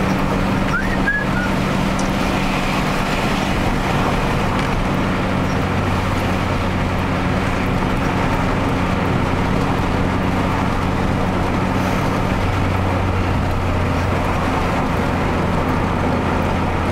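Car engine and tyre noise heard inside the cabin while driving at steady speed, a constant low drone. The engine note changes about twelve seconds in.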